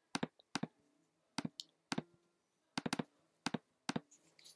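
A series of sharp computer mouse clicks, about eight in all, several in quick pairs, as the mouse operates an iPhone simulator on screen.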